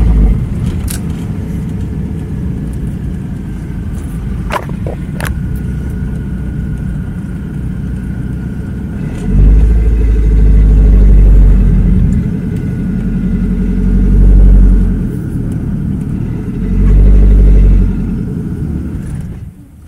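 A car driving, its engine running steadily. A heavy low rumble swells up three times in the second half, and a few sharp clicks come early. The sound drops off suddenly near the end.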